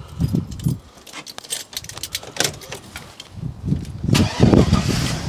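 Clicks and rattles inside a Chevrolet Tahoe's cabin as the driver's seat is pulled forward, then about four seconds in the Tahoe's engine cranks and starts into a loud low rumble.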